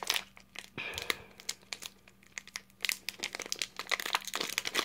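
Pokémon trading cards being shuffled and slid against one another in the hands, an irregular papery rustling with small clicks.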